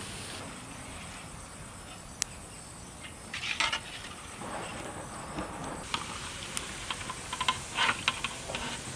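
Bread rolls deep-frying in hot oil in an iron kadai, sizzling steadily. A steel skimmer clinks and scrapes against the pan a few seconds in and again near the end as the rolls are stirred and lifted out.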